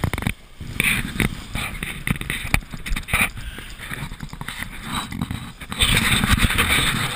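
A Mini 6.50 sailboat heeled over and sailing fast: water rushes and splashes along the hull and wind buffets the microphone, with irregular thumps as the hull slams into the waves. A louder rush of spray comes near the end.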